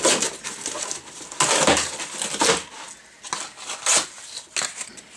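Cardboard delivery box being torn open by hand: irregular tearing and crunching of the cardboard lid, with crinkling of bubble-wrap packing.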